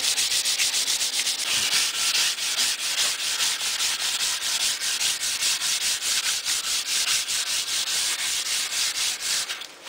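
Sandpaper (220 grit, wrapped around a flexible contour sanding pad) rubbed by hand back and forth along a wooden rifle stock. It makes a rapid, even, scratchy hiss of about five strokes a second, pausing briefly just before the end.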